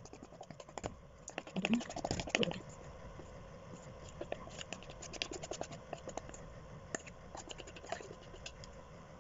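Wire whisk scraping and tapping against the inside of a metal mixing bowl as thick batter is scraped out. A quick run of clicks and scrapes comes about a second and a half in, then sparser clicks.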